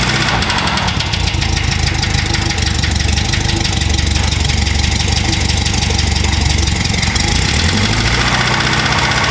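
1965 VW Beetle's 1200cc 40 hp air-cooled flat-four running with a rhythmic knock that sounds like a rod knock. Its revs rise near the end.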